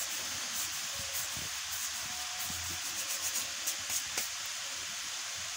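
Palms rubbing together to crush ajwain (carom seeds) over a bowl of batter, making a soft dry rasping with a few faint ticks, over a steady background hiss.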